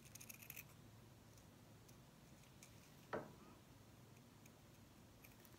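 Scissors trimming felt: a few faint snipping clicks near the start, then a single louder click about three seconds in, over quiet room tone.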